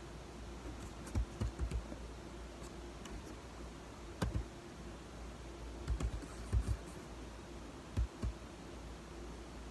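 Mouth sounds of someone chewing cornstarch: soft crunches and clicks in four short clusters.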